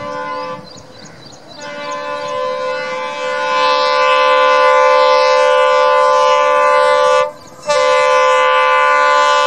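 Multi-tone air horn of an EMD WDP4D diesel locomotive sounding long steady blasts as the train approaches. It breaks off briefly about half a second in, then sounds a long blast that grows louder, breaks again near the end and sounds once more.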